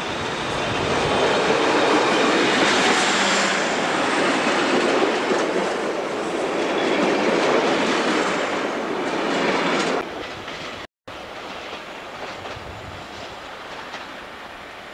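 SAR Bluebird diesel railcar pulling past close by, its running and the wheels on the rails making a loud, steady noise that swells as it comes alongside. About ten seconds in the sound cuts off abruptly, giving way to a quieter, more distant rumble.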